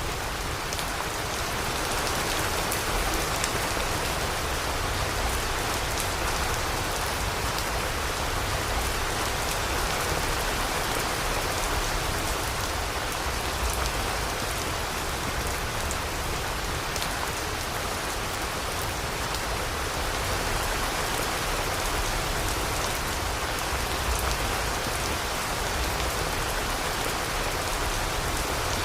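Steady rain falling on surfaces: an even hiss with many sharper single drop hits scattered through it.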